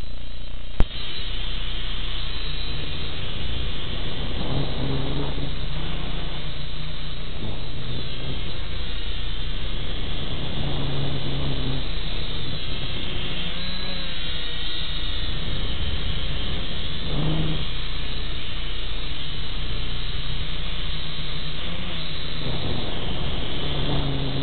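Syma X5C-1 quadcopter's small electric motors and propellers whirring, heard through the drone's own onboard camera microphone, with the motor whine wavering in pitch as the throttle changes. A single sharp click about a second in.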